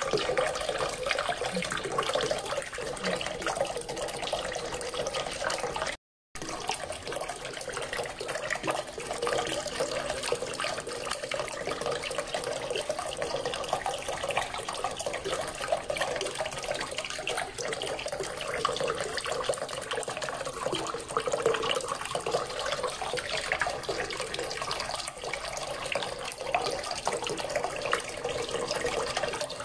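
A small fountain's water column splashing steadily into a water-filled basin, a continuous splashing and trickling. The sound drops out for a split second about six seconds in.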